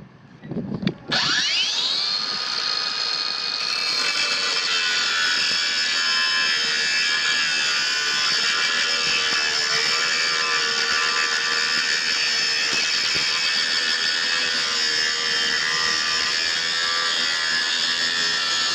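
Kobalt 24-volt cordless angle grinder's brushless motor switched on about a second in, spinning up with a rising whine, then running steadily at full speed.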